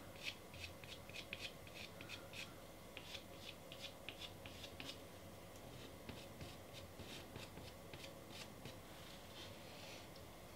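Soft pastel stick scratching quick short strokes on a pastel mat surface. The strokes come in fast runs of faint scratches and die away shortly before the end.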